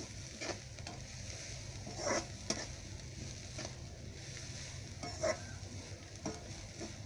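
Sliced onions and shallots sizzling in coconut oil in a metal pan while being sautéed. A spoon stirs them, scraping against the pan every second or so.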